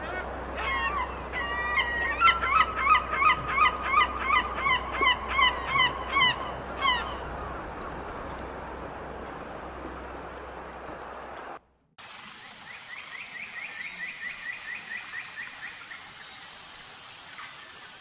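Canada goose honking: a quick run of loud honks, about two to three a second, for roughly six seconds, then steady outdoor background noise. About twelve seconds in, the sound cuts abruptly to a different recording with a rapid series of high chirps over a thin high steady tone.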